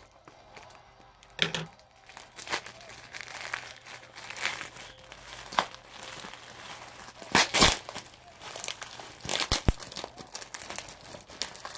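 A tightly wrapped parcel being unwrapped by hand: the packaging wrap crinkling and tearing in irregular bursts, loudest about seven and a half seconds in.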